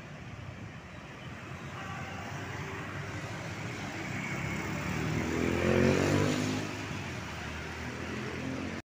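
Road traffic: motor scooters and a small minivan driving past. The traffic grows louder, and one engine rises and then falls away as it passes close about six seconds in. The sound cuts off suddenly at the very end.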